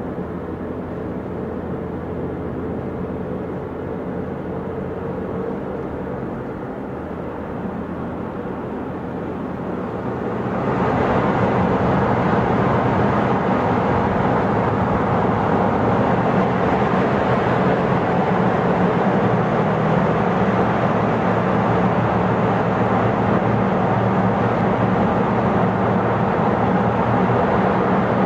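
Steady road and engine noise of a car heard from inside its cabin while driving. About ten seconds in, the car enters a road tunnel and the noise turns suddenly louder and brighter, then holds steady.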